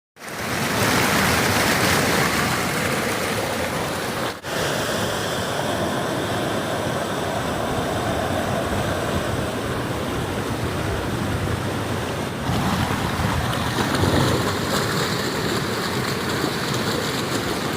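Heavy rain and rushing rainwater making a steady, loud rush of water noise, broken briefly about four seconds in and shifting in tone about twelve seconds in.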